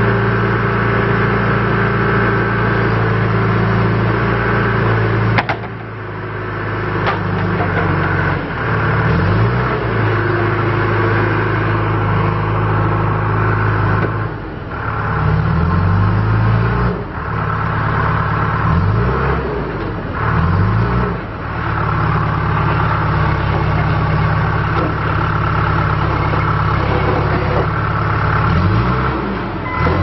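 John Deere 310G backhoe loader's four-cylinder diesel engine running, its speed dipping and rising several times as the machine works its front loader bucket and drives. A sharp click is heard about five and a half seconds in.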